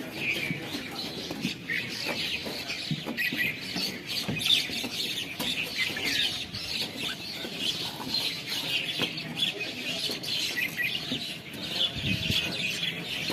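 A large flock of small birds chattering, many high chirps overlapping without a break.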